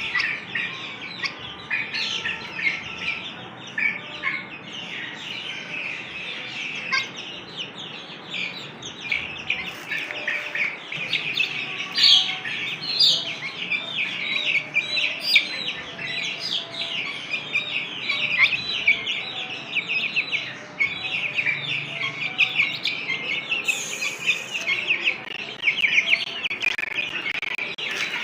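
A group of young Ayam Cemani chicks peeping continuously, many high, short chirps overlapping one another.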